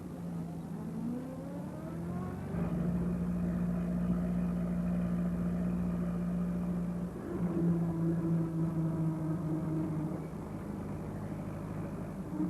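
Small van engine pulling away, rising in pitch over the first two or three seconds and then running at a steady speed. It shifts to a different steady note about seven seconds in.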